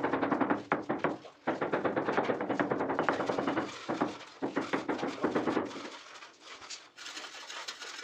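Rapid tapping on a floor tile being bedded, about eight knocks a second, that stops about six seconds in.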